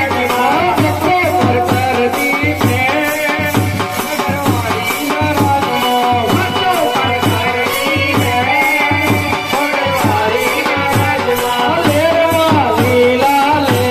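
Devotional folk singing into a microphone over a steady drum beat, with hand-held rattles shaken in time with the rhythm.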